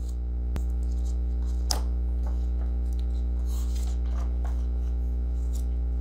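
Pages of a hardcover picture book being turned by hand: a couple of soft clicks and paper rustles over a steady low electrical hum.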